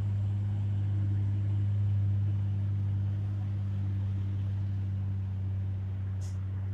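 Truck engine running steadily at a constant low hum, with no revving or horn. A brief high squeak comes near the end.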